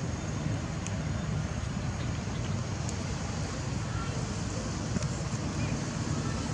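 Steady low rumble of wind buffeting the microphone outdoors, with a few faint clicks.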